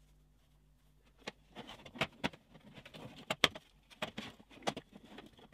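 Handling noise of a mesh net being pulled over a BB target's frame: soft rustling with scattered sharp clicks and taps, starting about a second in.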